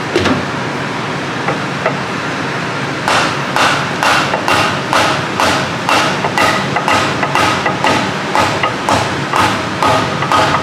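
Mallet tapping on the differential carrier of a GM 8.5-inch 10-bolt rear axle, driving the carrier with its side bearings and shims into the housing without a case spreader. A few spaced knocks, then from about three seconds in a steady run of about two taps a second.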